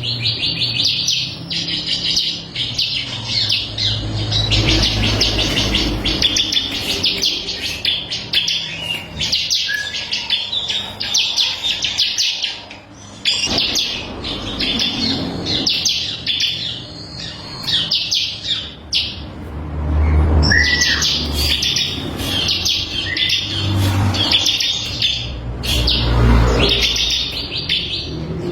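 Bar-winged prinia (ciblek kristal) singing: phrases of rapid, high repeated notes following one another almost without pause. Low rumbles sound underneath a few times.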